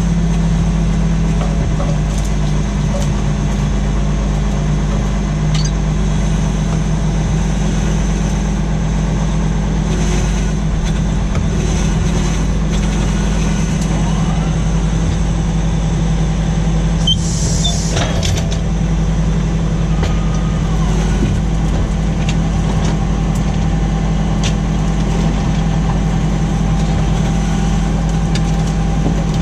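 Tractor engine running steadily under load while pulling a plough, a constant low drone, with a short hiss a little past halfway.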